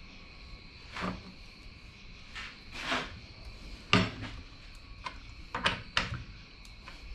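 Husqvarna 450 Rancher chainsaw being handled and worked on a wooden bench: a run of short plastic-and-metal clicks and knocks, about eight, the loudest about four seconds in.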